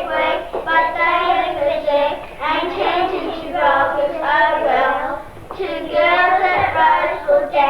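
A group of children singing together in sustained, wavering notes, heard on an old VHS recording that is dull, with no high end.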